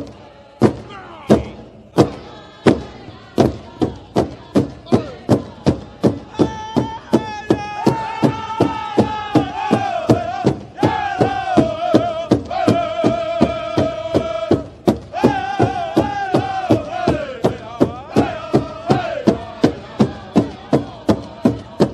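Background music of a steady drum beat with chanted singing. The drum starts slow and quickens after a few seconds, and about six seconds in a voice joins, chanting long, wavering notes over it.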